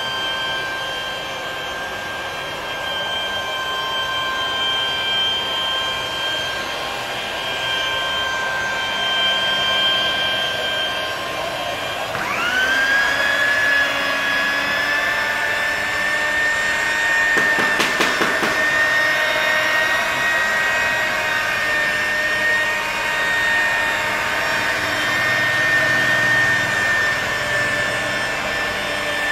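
Electric rotary polisher whining steadily as its pad works polishing compound over car window glass. About twelve seconds in, the pitch drops sharply and climbs back, then holds slightly higher; a short run of clicks comes a few seconds later.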